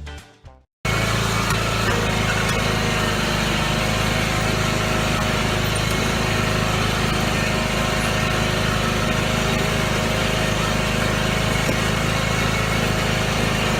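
Music fades out in the first second, then a John Deere riding lawn mower's engine starts in abruptly and runs steadily at an even pitch.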